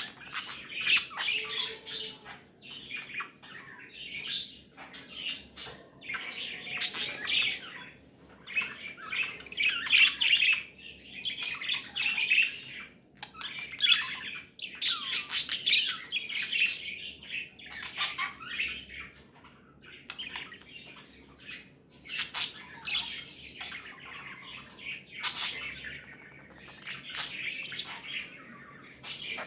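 Pet budgerigars chattering and warbling: a busy run of scratchy chirps and squawks in bursts with short gaps between them.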